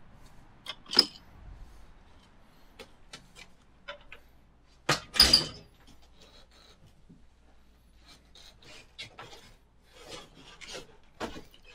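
Handling noise of a handheld camera and microphone rig while walking: scattered rubs, rustles and small knocks, with two louder bumps about a second and five seconds in.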